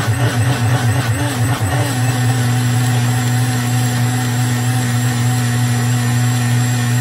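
Small personal blender motor running, blending a wet marinade of scallion, spices and oil. Its pitch wavers for the first couple of seconds, then holds steady.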